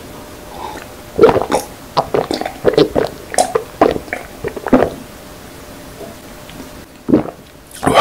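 A person gulping cola from a glass, close-miked: about ten loud swallows in quick succession over three or four seconds, then a pause and a single mouth sound near the end.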